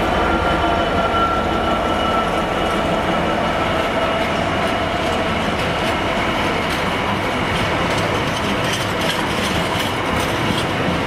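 A Freightliner Class 66 diesel freight locomotive, with its EMD two-stroke V12, passes and draws away, followed by a rake of empty container flat wagons rolling past. A steady rumble and rail noise carry a whine that falls slightly in pitch over the first few seconds. From about halfway, a run of clicks comes from the wagon wheels going over the rail joints.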